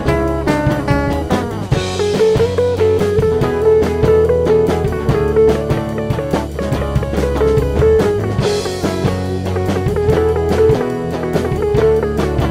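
Background music: a guitar playing over a drum kit with a steady beat.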